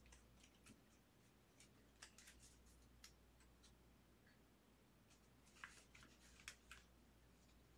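Near silence with faint clicks and light taps of trading cards being handled and sorted by hand, a few about two to three seconds in and a small cluster a little before the end.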